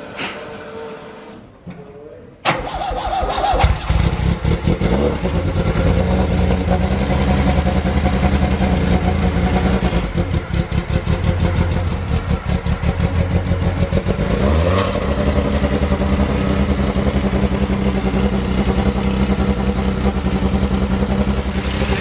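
1986 Lancia Delta S4 Group B rally car's twin-charged 1.8-litre four-cylinder engine firing up about two and a half seconds in and running loud. It runs unevenly for a few seconds past the middle, with a short rise in revs, then settles to a steady idle.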